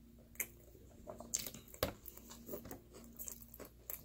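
A person chewing a mouthful of pizza crust: wet mouth and lip smacks with scattered sharp clicks, the loudest a little under two seconds in.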